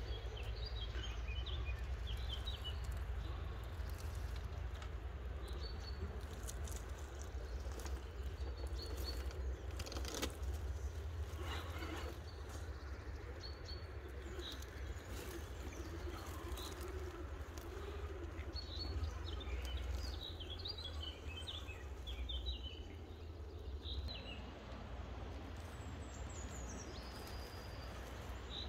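Songbirds chirping in short, scattered calls, with one high falling whistle near the end, over a steady low rumble. A few sharp clicks and crackles come around the middle.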